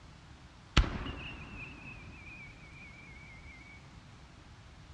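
Japanese aerial firework shell: a sharp launch thump from the mortar about a second in, then a thin wavering whistle as the shell climbs, sinking slightly in pitch and fading out. The shell bursts with a loud bang right at the end.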